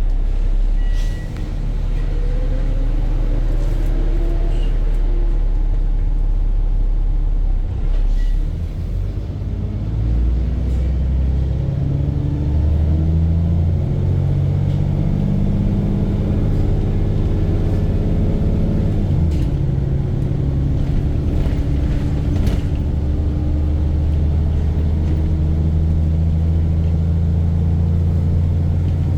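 VDL bus's diesel engine running under way. Its pitch climbs, holds higher, drops suddenly about two-thirds of the way through, then runs steadily. The bus is said to have an engine knock after a blown exhaust.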